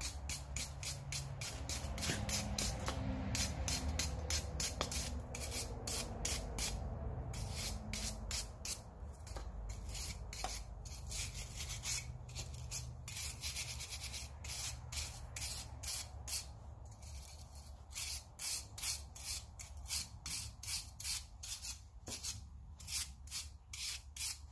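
Wire brush scrubbing scale off a hot forged-steel bottle opener in quick, even back-and-forth strokes, a couple to three a second, over a low steady hum.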